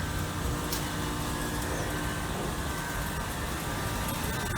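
Outdoor heat pump unit running in cooling mode: a steady hum of the compressor and condenser fan, with no change in level.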